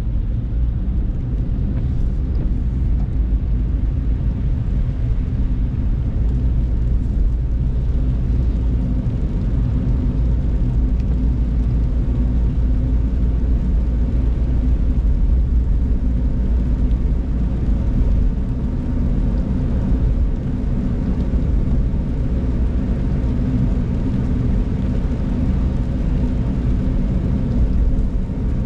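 Steady low rumble of a car's engine and tyres on a rain-soaked road, heard from inside the cabin.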